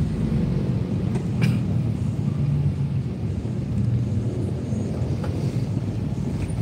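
Steady low rumble of a car's engine and tyres on the road, heard from inside the cabin while driving in slow traffic.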